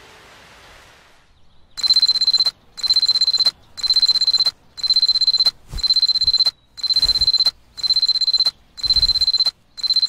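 Digital alarm clock beeping: groups of rapid high-pitched beeps, one group about every second, starting about two seconds in and going on steadily.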